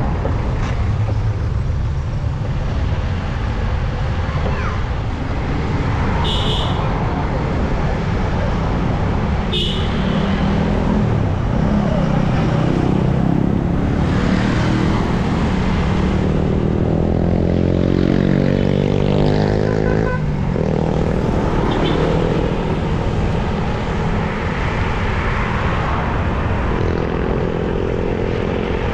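Road traffic heard from a bicycle on the roadside, over a steady low rumble. A motor vehicle's engine passes close, its pitch climbing for several seconds and then dropping away about two-thirds of the way through. Two sharp clicks come about six and ten seconds in.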